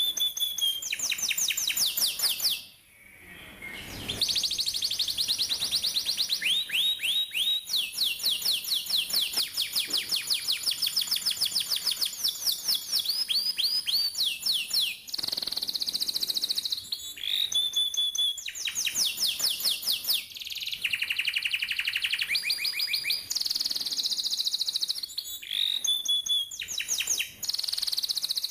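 Domestic canary singing a long, high-pitched song made of fast rolls of rapidly repeated, falling notes, switching between several trill types with short held whistles between them. There is one brief pause about three seconds in.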